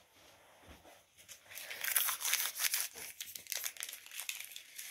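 Crinkling and rustling of small collectible-card packets being handled, starting about a second and a half in.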